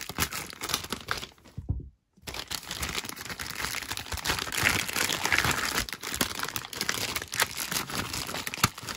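Thin plastic bag crinkling and crackling as hands cut it open and pull it apart, with many small sharp crackles and a brief dropout about two seconds in.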